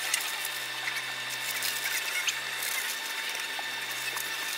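Express passenger boat running underway: a steady machine hum of several tones over an even hiss, with a few faint clicks.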